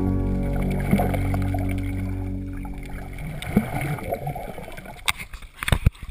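The guitar music's final chord rings and fades away over about three seconds. A few irregular sharp knocks follow near the end.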